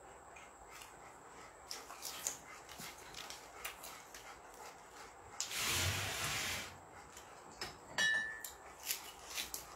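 Mouth sounds of a man eating by hand: scattered small clicks of chewing and lip smacks, with a louder breathy, rasping sound of about a second a little past halfway and one sharp click near the end.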